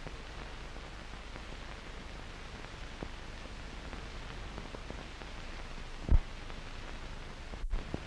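Steady hiss of an old film soundtrack between lines of narration, with a low pop about six seconds in and a brief dropout with small pops just before the end.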